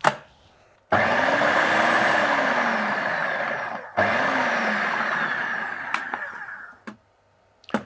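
Electric blender puréeing canned peeled tomatoes into pizza sauce. It runs in two pulses of about three seconds each, with a short stop between, and its motor note rises and then falls in each pulse.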